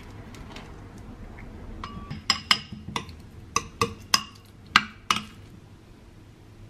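A metal utensil clinks against dishware, about nine sharp clinks with short ringing, bunched between two and five seconds in.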